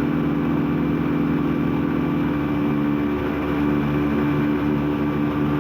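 Lexmoto Adrenaline 125cc supermoto engine running under steady throttle while riding, its note holding one even pitch.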